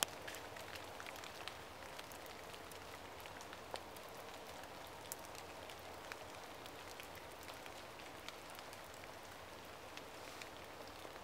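Light rain pattering faintly on forest leaves: a steady soft hiss with scattered small ticks.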